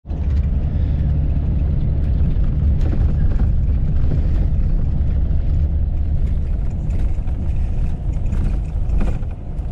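Bus engine and road noise heard from inside the passenger cabin: a steady low rumble, with a few faint clicks.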